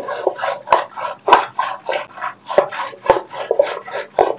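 Hand churning stick (ravi) spun in a stainless steel pot, whipping yogurt and water into frothy buttermilk: a fast, even swishing and sloshing, about four or five strokes a second, with a few sharp ticks where the churner knocks the pot.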